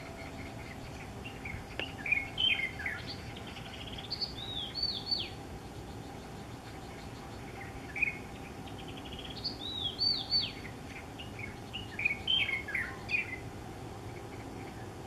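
Chinese bulbul (light-vented bulbul) singing two phrases, each a quick run of short whistled notes swooping up and down. The uploader takes the song for courtship.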